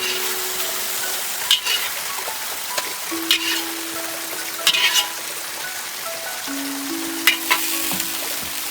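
Food sizzling as it fries in a pan, a steady hiss broken by a few sharp knocks of a utensil stirring it.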